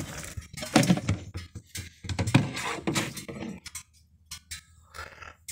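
Hollow plastic knocks and thunks of a hard-sided drink cooler being tipped and jostled, a quick run of loud knocks over the first three seconds or so, then a few light clicks.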